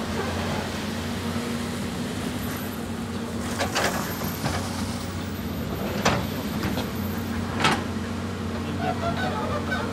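Caterpillar 320D excavator's diesel engine running steadily under digging load, with three sharp knocks of the bucket against rock, about four, six and seven and a half seconds in.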